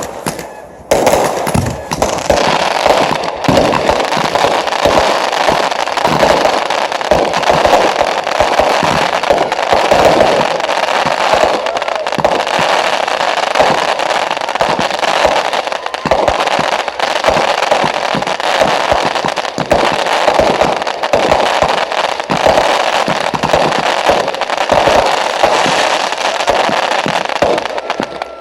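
Fireworks display: a dense, continuous barrage of bangs and crackling that starts about a second in after a brief lull.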